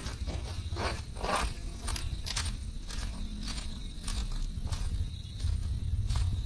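Baby bird cheeping in short, irregular chirps over a faint steady high tone and a low rumble.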